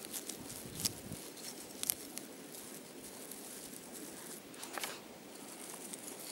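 A hand rustling through short grass and leaves, with a few sharp clicks about one, two and five seconds in.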